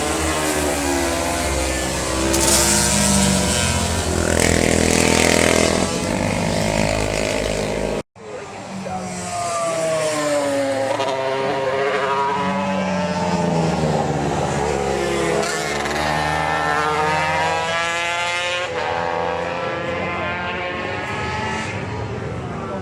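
Road-racing motorcycles passing at speed, engine notes rising and falling through gear changes as they go by. The sound drops out abruptly about eight seconds in, then more bikes are heard passing.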